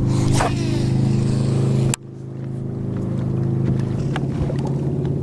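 Boat outboard motor running steadily under way. Its sound drops away sharply about two seconds in, then builds back up over about a second and runs on.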